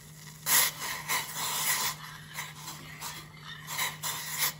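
Metal spoon stirring in a stainless steel saucepan of simmering water and spices, with a sharp clink about half a second in followed by irregular scrapes and taps against the pan's sides and bottom. A low steady hum runs underneath.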